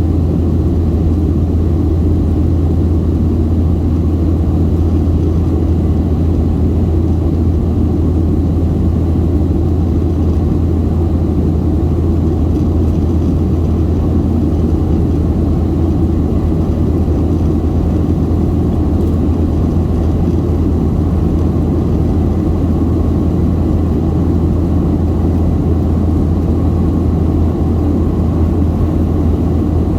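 Steady cabin drone of a Boeing 737-700 in flight: its CFM56-7B jet engines and the airflow over the fuselage make a constant deep hum with a rushing noise above it.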